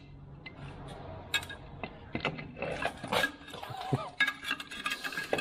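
Irregular metallic clinks and knocks, as of tools and metal parts being handled during a teardown.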